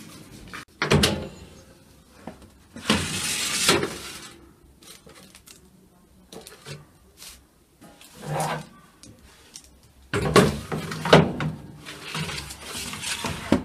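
Kitchen handling sounds of a baking tray and oven: a sharp knock about a second in, a longer scraping rush about three seconds in, and a busy run of knocks and clatter near the end.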